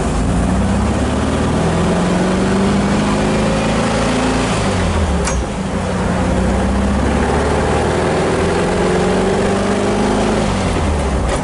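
1974 VW Thing's 1.6-litre air-cooled flat-four engine accelerating from a pull-away, its pitch rising through first gear, falling at an upshift about five seconds in with a short click, then rising again through the next gear before another shift near the end.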